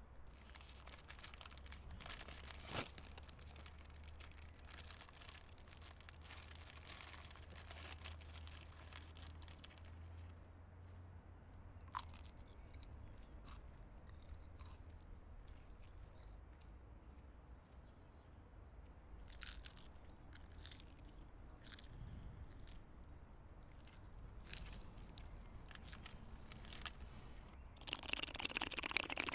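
Paper food wrapper crinkling and crunchy chewing, in scattered small crackles and clicks. Near the end comes a louder slurp through a drinking straw, lasting about a second and a half.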